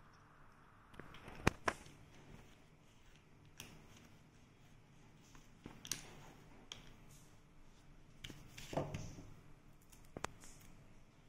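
Raw potato being cut with a small handmade aluminium cutter: faint, scattered cutting and scraping sounds with a few sharp clicks of the tool.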